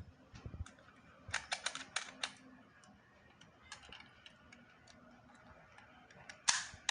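Light clicks and taps from something being handled, with a quick run of them about a second and a half in and a louder knock near the end.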